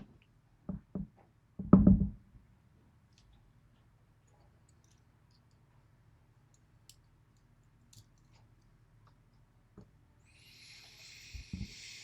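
Small clicks and knocks of a Yale pin-tumbler lock being taken apart by hand as its driver pins are removed. A heavier knock comes about two seconds in, and a soft rustling hiss with a couple of knocks comes near the end.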